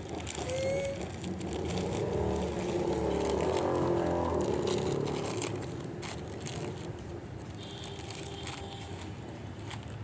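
A vehicle passing by: its rumbling noise swells to a peak about four seconds in and then fades away.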